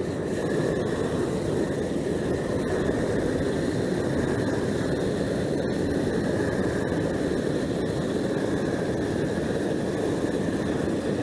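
Propane torch burning steadily, a continuous even rushing noise, as its flame heats rubberized asphalt repair tape to burn off the top liner and melt the material.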